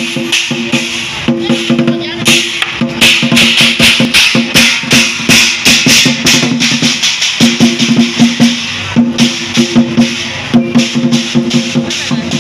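Chinese lion dance percussion: drum, cymbals and gong struck in a fast, driving rhythm, the cymbal clashes coming several times a second over a ringing tone, busiest in the middle stretch.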